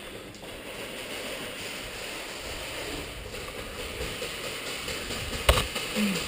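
Steady rushing noise with one sharp knock about five and a half seconds in.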